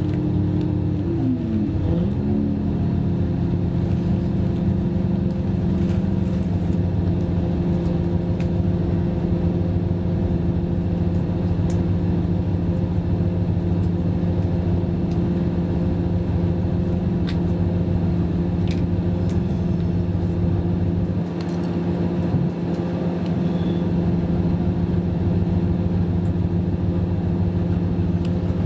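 Class 612 RegioSwinger diesel multiple unit heard from inside the passenger compartment while under way: a steady low drone of the diesel engines and running gear. About two seconds in, the engine note falls in pitch, then holds level.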